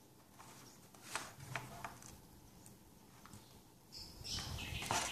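Faint light clicks and rustling as wire leads and small plug connectors are handled and pushed together, a few separate ticks in the first half, then a longer rustle from about four seconds in.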